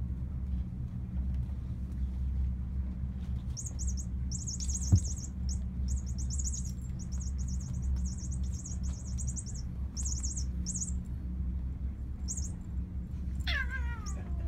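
An F2 Savannah cat lets out a long yowl that slides steeply down in pitch near the end. Earlier there are bursts of rapid high-pitched chirping and a single sharp click, over a steady low hum.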